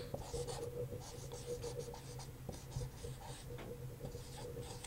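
Dry-erase marker moving across a whiteboard as a word is written: faint rubbing in short, irregular strokes.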